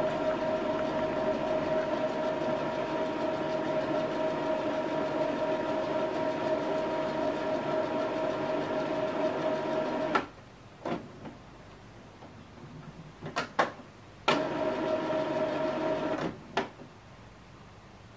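Epson XP-3200 inkjet printer running its initial ink charging: a steady motor hum with a whine for about ten seconds that cuts off suddenly, a few sharp clicks, then a second run of about two seconds ending with a click.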